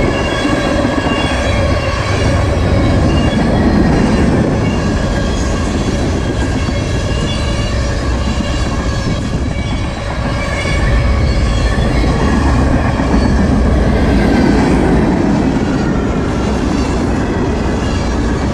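Freight train cars rolling past close by. The wheels on the rails make a loud, steady rumble, with high, steady squealing tones from the wheels over it.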